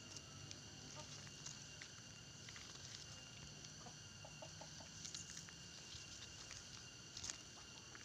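Faint outdoor ambience: a steady high-pitched insect drone with scattered small clicks and rustles, and a quick run of four short low calls about halfway through.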